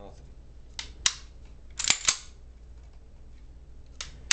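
Sharp metal clicks and clacks from the action of a SIG Sauer P229 pistol being worked by hand. There are about seven in all, with a quick cluster of three about two seconds in.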